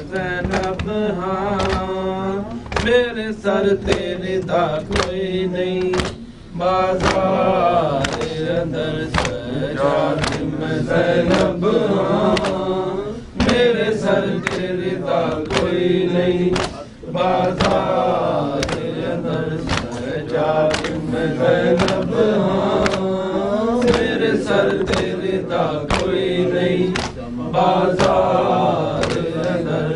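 Men's voices chanting an Urdu noha, a lament sung in mourning for Imam Hussain, with a group seeming to join in. Through it runs a steady rhythm of flat-hand chest-beating (matam), about two strikes a second.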